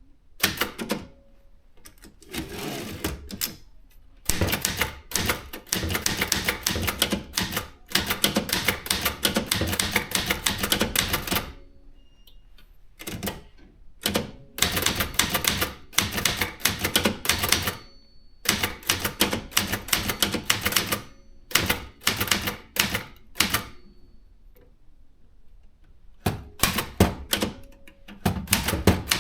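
Brother JP 1 typewriter being typed on, its keys striking in quick runs of clicks broken by short pauses.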